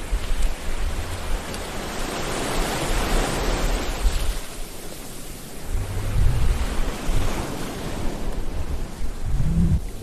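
Sea waves washing on the shore, one wave's wash swelling and fading about two to four seconds in, with low rumbles of wind on the microphone later on.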